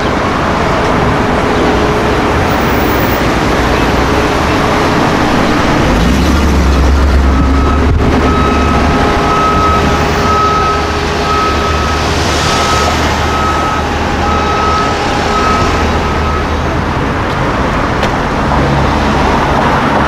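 City street traffic noise, with the deep low rumble of a Mercedes-Benz 500E's V8 moving off through traffic for about ten seconds in the middle. A high beep repeats in short, even pulses over it for several seconds.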